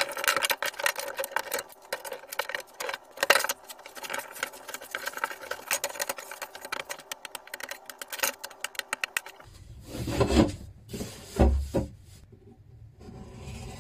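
Rapid clicking and scraping from hand work on a glued-up fir panel: clamps worked and dried glue picked off its edges. About nine and a half seconds in it turns quieter, with two dull knocks as the panel is handled on the workbench.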